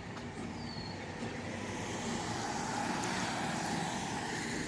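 Mobile MRI trailer's machinery running with a steady hum, heard from outside the trailer; the noise swells a little louder about halfway through.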